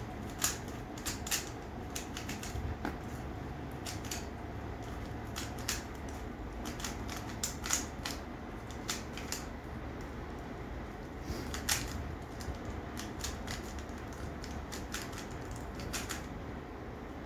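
Rubik's Cube being turned fast during a speedsolve: irregular quick plastic clicks and clacks of the cube's layers twisting, several a second.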